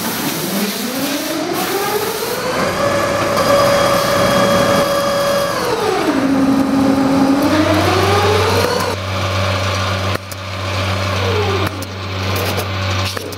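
JBF KW 765 yarn ball winding machine running. Its drive whine rises in pitch, holds steady, dips and climbs again, then gives way about nine seconds in to a steady low hum with scattered mechanical clicks.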